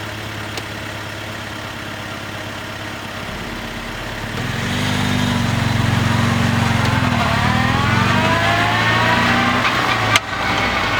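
Honda Prelude four-cylinder engine running steadily, then getting louder about four seconds in as the car accelerates, with a whine rising in pitch over the next few seconds. A sharp click near the end.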